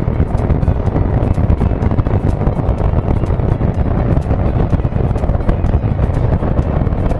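Loud wind buffeting on the microphone of a moving motorcycle, a steady low rumble with crackly distortion, covering the bike's engine and the surrounding traffic.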